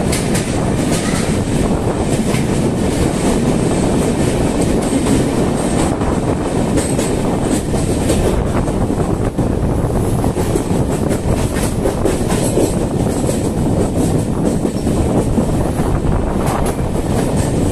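Passenger train running at speed: a steady, loud rumble of wheels on rail with clickety-clack over the rail joints, as the coach comes out of a tunnel into a rock cutting.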